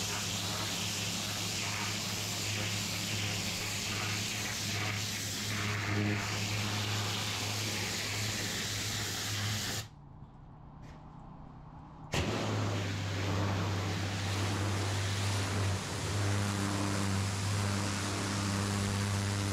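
Pressure washer lance jetting water onto brick block paving: a loud steady hiss of the spray over the low, even drone of the machine. About ten seconds in, the sound drops away for roughly two seconds, then the spraying and the drone resume.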